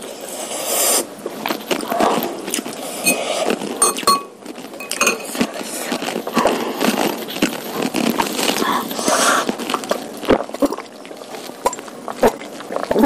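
Close-miked eating: chewing mouthfuls of curry noodles and beef meatballs, with cutlery clinking and scraping against the bowl every so often.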